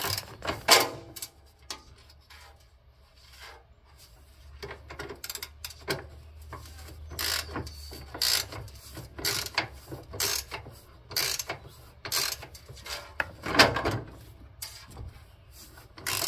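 Ratchet wrench clicking as it turns a bolt on a lawn tractor's seat mounting, in repeated short strokes about twice a second, with a lull from about two to four seconds in.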